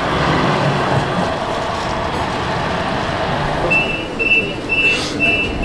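Croydon tram running with a steady rumble of rolling noise. About two-thirds of the way in, a row of about four short, high two-note beeps sounds over it.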